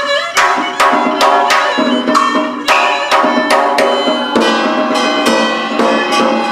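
Vietnamese ceremonial ensemble music: a two-string fiddle plays a wavering melody over steady, sharp drum strokes about two to three a second.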